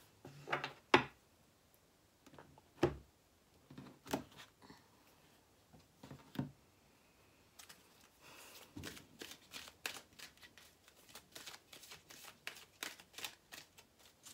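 A deck of cards shuffled by hand: a few separate sharp taps and slaps of the deck in the first half, the loudest about a second in, then a quick, even run of card flicks from about halfway on.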